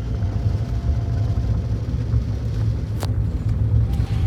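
Steady low rumble of a car, with one sharp click about three seconds in.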